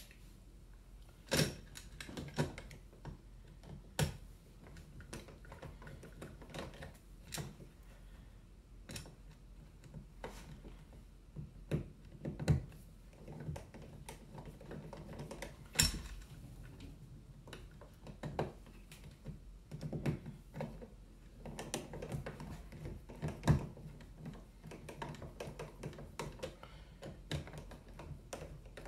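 Scattered clicks, taps and knocks of a dimmer switch being worked into its wall box and its mounting screws fitted by hand and screwdriver, a few knocks louder than the rest.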